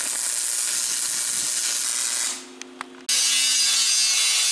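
Electric arc welding on steel: two welding runs with a steady hissing crackle and a faint hum under it. The first stops a little past two seconds in, and after a short pause and a click a louder second run starts about three seconds in.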